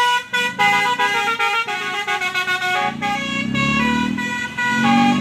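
Bus telolet horn playing a quick tune of stepped notes. A lower, wavering tone that slides up and down joins it over the last two seconds.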